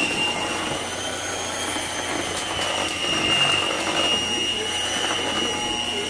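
Electric mixer running steadily, its motor giving a high whine that wavers slightly in pitch, as it whips boiled sweet potatoes into pie filling.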